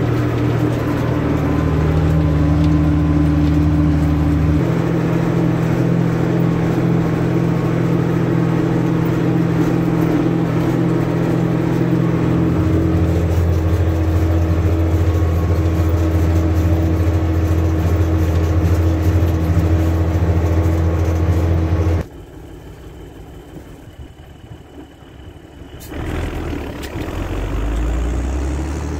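Tractor engine running steadily under load while pulling a plough through the field. About 22 s in the sound drops suddenly to much quieter for a few seconds, then a low engine drone rises again near the end.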